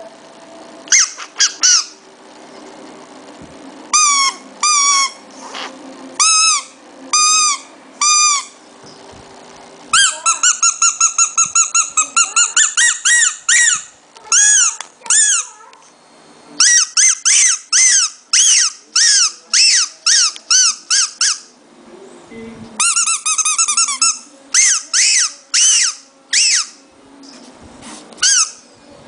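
Shih tzu puppy making a strange noise: runs of short, high-pitched squeaks that each rise and fall in pitch, sometimes several a second, with pauses between the runs.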